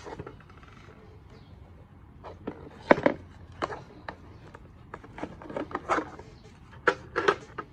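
Plastic LCD panel meter knocking and clicking against a steel ammo can as it is pressed into its cut-out: a scatter of short taps and clicks, more of them in the second half.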